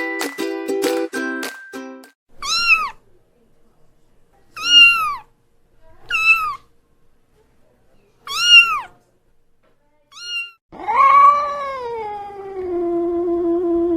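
A short chiming jingle ends about two seconds in. Then a kitten meows five times: short, high meows that rise and fall, a second or two apart. About eleven seconds in, an aggressive adult cat starts a long, low yowl that falls in pitch and then holds.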